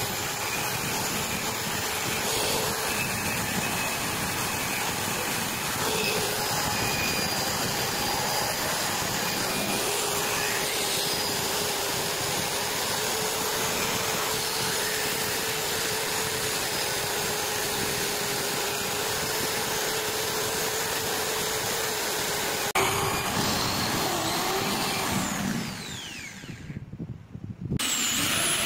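Small handheld electric rotary grinder with a wire brush wheel running steadily against a metal part, a steady motor whine under the scrubbing noise. It winds down near the end, and after a short pause a larger angle grinder starts up.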